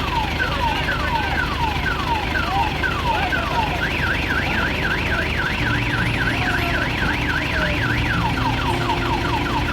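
An electronic vehicle warning siren cycling through its tones: quick falling sweeps, then from about four seconds in a faster up-and-down warble, then falling sweeps again near the end. Diesel engines idle underneath.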